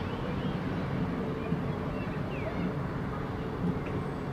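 Steady low engine hum over a dense background murmur, with a few faint, short high chirps.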